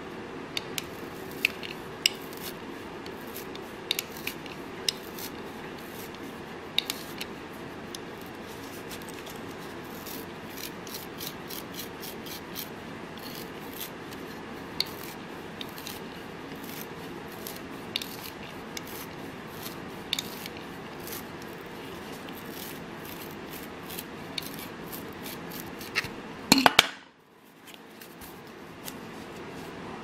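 Leatherman Bond multi-tool being handled and worked: scattered short metallic clicks over a steady background hum. Near the end comes a louder clatter of clicks, after which the hum briefly cuts out.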